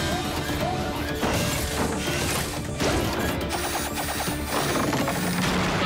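Cartoon sound effects of crashing and clattering metal, as from a collapsing bridge, over dramatic action music.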